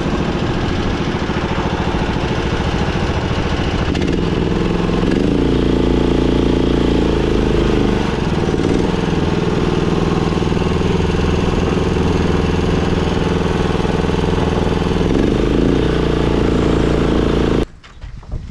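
Small gasoline engine on a concrete power buggy running steadily just after an oil change, run to check the oil level. It stops abruptly near the end.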